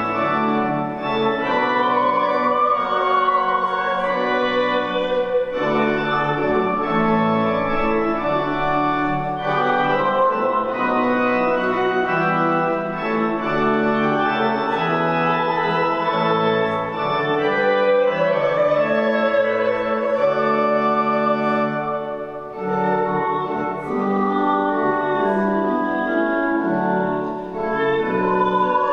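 Church organ playing slow, held chords in phrases, with short breaks between them.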